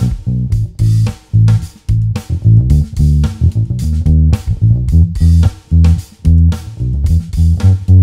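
Fender Custom Shop '59 Precision bass strung with flatwound strings, played fingerstyle through a miked Barefaced Super Midget and One10 bass cabinet stack: a bass line of short, punchy notes, several a second, with brief gaps between phrases.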